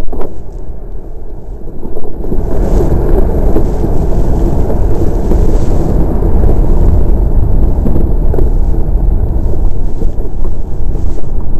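Loud, steady low noise of a DN iceboat's runners sliding over smooth ice, mixed with wind buffeting the microphone as the boat sails.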